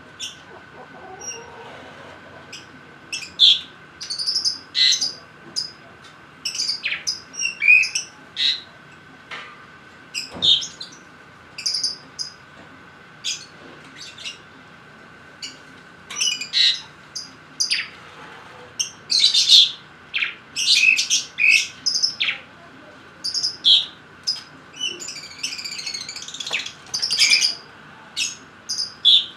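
Lovebirds chirping in short, shrill calls that come in clusters, over a faint steady whine. A single knock about ten seconds in.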